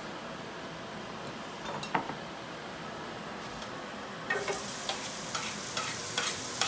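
Thick-cut bacon pieces going into hot olive oil in a roasting pan: a single clack about two seconds in, then about four seconds in a sizzle with crackling starts abruptly as the bacon hits the hot fat. A steady background hiss runs under it.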